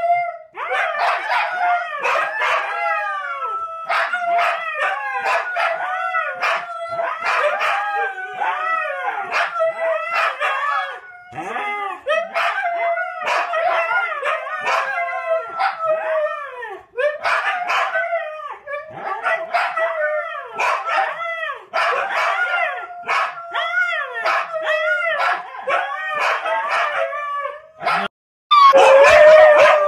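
Huskies howling together in a chorus of overlapping, wavering howls broken by short gaps. A louder stretch of howling starts just before the end.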